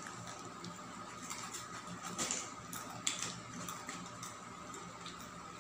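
Faint scraping and crinkling of a brown-paper parcel as a small tool works along its taped edge to open it, with a few light clicks.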